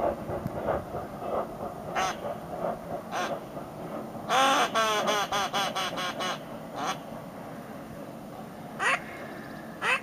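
Duck call blown loudly: a couple of single quacks, then a fast run of about a dozen quacks a little after four seconds in, the loudest part, then a few more single quacks, the last two rising in pitch.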